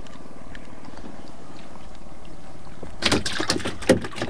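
Steady wash of sea water around a small outrigger fishing boat, then a quick run of knocks and clicks about three seconds in as the fish is unhooked and the line handled.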